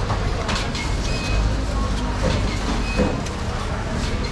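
Busy street-stall background: a steady low rumble with scattered clicks and clatter and faint voices.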